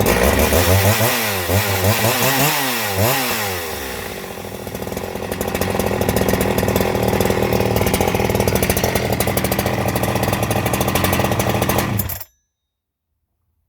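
Freshly rebuilt Husqvarna 372XP two-stroke chainsaw engine running, its throttle blipped up and down several times in the first few seconds, then running steadily. The sound cuts off suddenly near the end.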